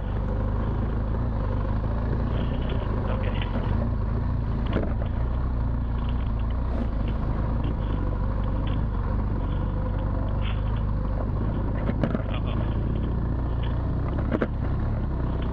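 BMW R1200GS Adventure's boxer-twin engine running steadily as the bike rides a rough dirt trail. A few sharp knocks come through, one about five seconds in and two near the end.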